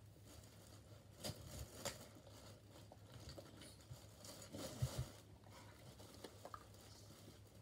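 Faint rustling and a few soft clicks and taps as small objects are handled in a plastic box, over a low steady hum.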